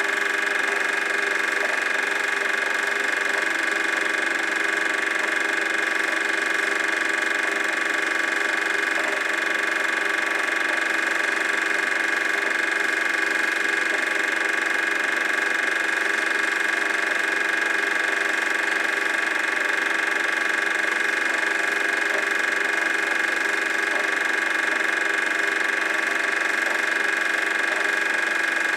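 Super 8 film projector running: a steady mechanical whir with a constant hum that does not change when the picture cuts from the room to the beach.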